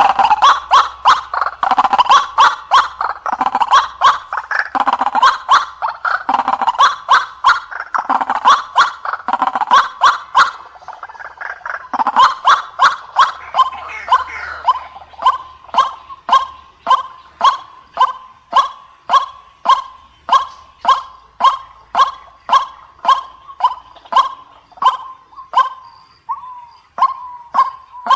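White-breasted waterhen (ruak-ruak) calling: a loud, long run of harsh repeated notes. For the first ten seconds the notes are dense and overlapping, with deeper notes mixed in. After that they settle into an even series of a bit under two a second.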